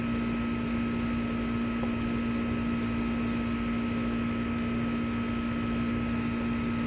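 Steady background hum of a fan or appliance, level throughout, with a low tone and a fainter higher tone, and a few faint small ticks.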